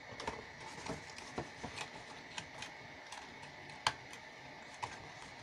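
Light taps, clicks and rustles of heavy cardstock being handled and pressed into place, with one sharper click about four seconds in.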